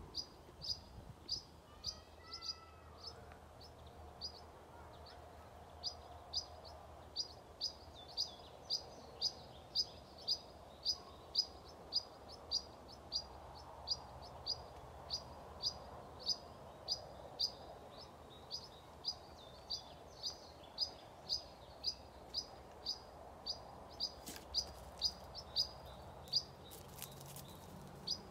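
A small bird repeating one short, high chirp over and over, about two a second, with a few different short falling calls from another bird about two seconds in.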